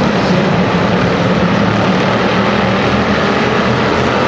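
Several hobby stock race cars running at speed together, their engines blending into one loud, steady engine sound.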